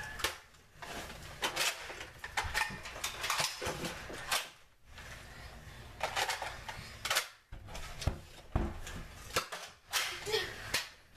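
Nerf blasters firing foam darts and the darts hitting home: an irregular scatter of sharp clicks and knocks, with a pause around the middle.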